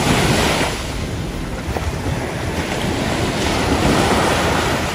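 Ocean surf breaking and washing around the shallows, with wind rumbling on the microphone; the wash surges louder at the start and again near the end.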